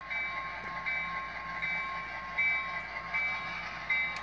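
Model freight train running, with a pitched, ringing tone that comes in regular pulses about every three-quarters of a second.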